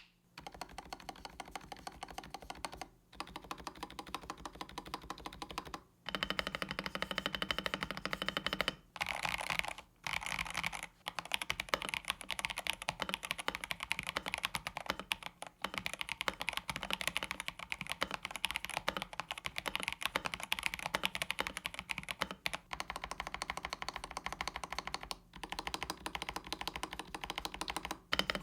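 Fast typing on an Epomaker Shadow-X gasket-mount mechanical keyboard, fitted with Epomaker's own switches. It comes as several runs of rapid key presses broken by short pauses.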